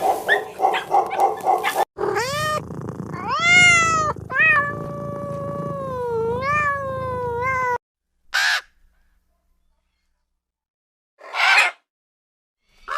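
A cat meowing in long, drawn-out calls that rise and fall in pitch, followed by three short hissing bursts.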